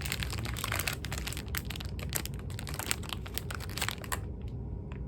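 Plastic snack wrapper crinkling and rustling as a packaged red bean paste bread is handled and opened. It is busy for about four seconds, then thins to a few scattered crackles.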